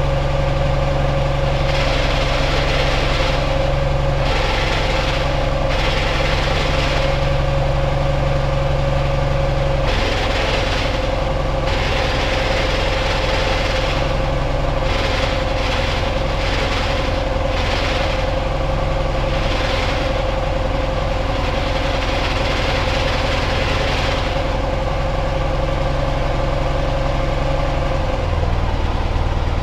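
Ural motorcycle's air-cooled flat-twin engine idling steadily, with a hiss that comes and goes over it every second or two.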